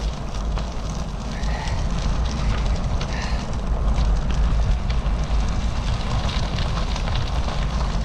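Bicycle tyres rolling over an unpaved dirt path, a steady crackling crunch with many small clicks, and wind rumbling on the microphone.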